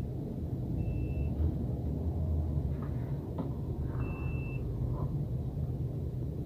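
Digital clamp multimeter giving two short high beeps about three seconds apart as its probes touch the leads of a halogen floodlight ballast: continuity beeps showing the ballast winding is still good. A steady low hum runs underneath.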